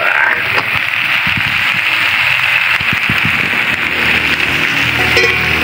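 Whole raw shrimp sizzling in a hot wok, a steady hiss, with a few soft knocks in the first two seconds as shrimp drop in. A low steady drone joins about four seconds in.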